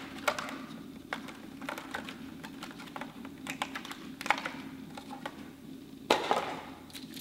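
Small metal clicks and light knocks of AR-15 parts being handled as a magnetic buffer and spring are fitted into the rifle's buffer tube. The clicks are scattered and irregular, and the sharpest come about four and six seconds in.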